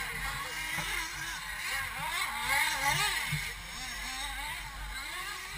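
Engines of several 1/8-scale RC buggies racing at once, their pitch rising and falling as they speed up and slow down around the track, loudest about halfway through.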